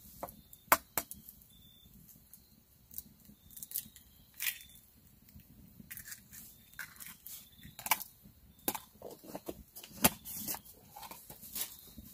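Eggs being cracked for a skillet: a sharp tap of shell against the pan about a second in, then scattered clicks and crackles of shell being worked open, with a wood fire crackling.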